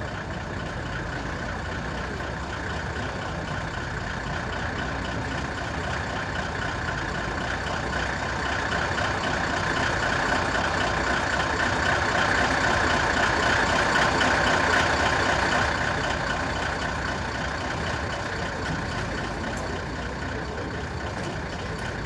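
Magirus-Deutz truck's air-cooled diesel engine running as the truck drives up and past, growing louder to a peak about two-thirds of the way through and then easing off.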